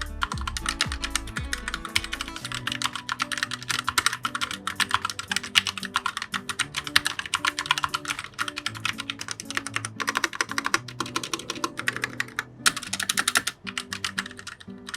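Fast typing on a Vortex VX7 mechanical keyboard with Otemu Brown switches: a dense, steady run of keystroke clacks, broken by a couple of short pauses near the end, over background music.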